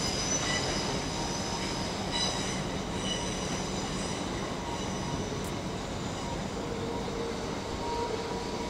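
TransPennine Express multiple unit running slowly round a curve through pointwork, its wheels squealing high-pitched over a steady rumble. The squeal fades after about four seconds, leaving the rumble of the passing train.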